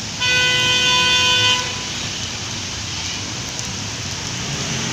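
A vehicle horn gives one steady honk of about a second and a half just after the start, over a steady wash of traffic and water noise from vehicles moving through floodwater.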